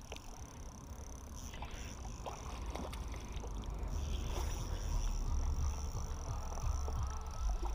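Low rumbling wind noise on the microphone, growing louder from about halfway, with faint scattered clicks and rustles as a spinning reel is wound in against a hooked trout.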